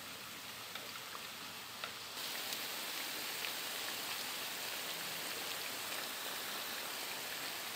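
Panko-breaded banana pieces deep-frying in hot oil, sizzling steadily; the sizzle gets louder about two seconds in. The pieces are turning golden and are nearly done.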